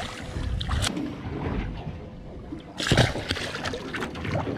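A hooked fish splashing and thrashing at the surface beside a small boat's hull, with water sloshing, and a louder splash about three seconds in.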